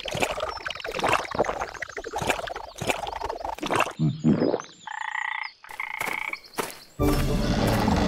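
Frog croaking in a rapid run of short pulses, then a few brief calls after a pause. Music comes in about seven seconds in.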